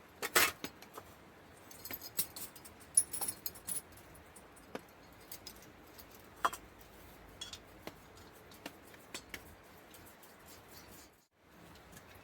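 Camping cooking gear being handled: scattered metallic clinks, clicks and light rustles as a gas stove and pot are set up.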